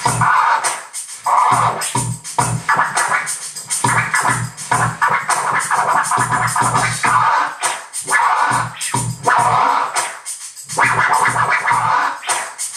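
Vinyl record being scratched on a turntable: quick back-and-forth strokes of the record, chopped on and off at the mixer, over a steady drum beat.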